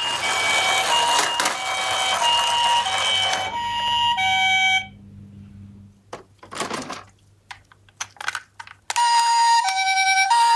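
Electronic two-tone sirens of toy ambulance minicars alternating high-low in the Japanese ambulance "pee-po" pattern over a noisy haze, cutting off about five seconds in. A few clacks and knocks sound in the quieter gap. Near the end another toy siren starts the same two-tone alternation, louder and cleaner.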